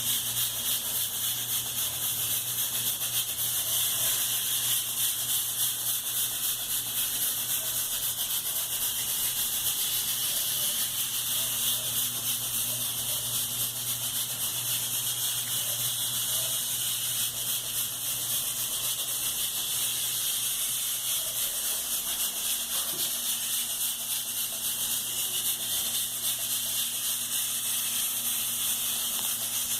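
A steady, high-pitched hiss with a low, steady hum underneath, unchanging throughout.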